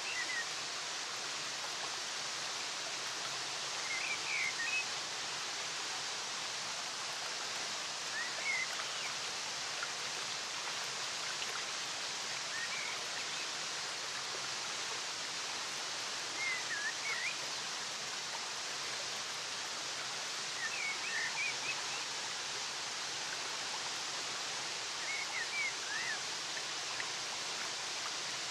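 Steady rush of a waterfall and cascading stream, with short high chirps every four or five seconds.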